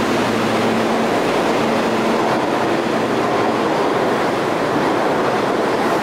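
Subway train noise at a station platform: a steady, loud rush and rumble, with a low hum that fades out about a second in.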